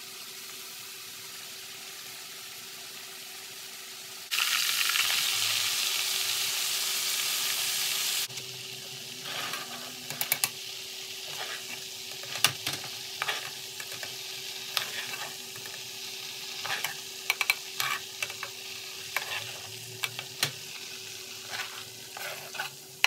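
Breaded bay scallops deep-frying in a small pot of oil, sizzling steadily. About four seconds in, the sizzle turns much louder for about four seconds, then drops back. Through the second half a metal skimmer and spoon clink against the pot again and again as the scallops are lifted out.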